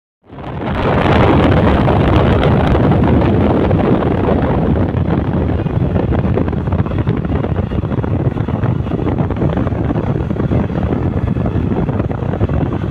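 Wind buffeting the microphone over the rush of road traffic: a loud, steady rushing noise with no horn tones, fading in over the first second.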